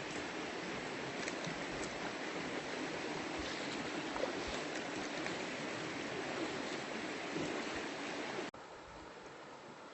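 River water flowing in a steady rush. About eight and a half seconds in, it cuts off abruptly to a quieter, softer flow.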